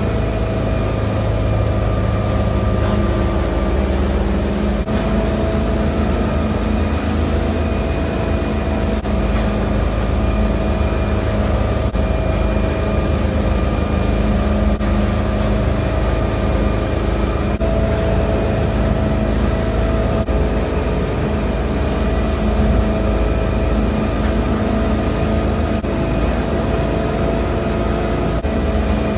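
Motorboat engine running steadily at cruising speed, with the rush of the churning wake over it.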